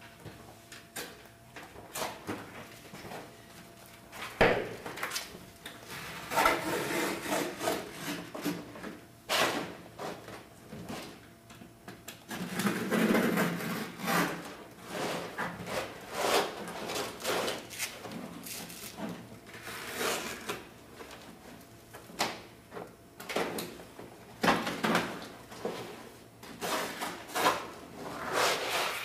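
Handling noise: a large rolled sheet of wrapping material rustling and scraping as it is moved and dragged along a wooden frame, with scattered knocks and bumps of wood.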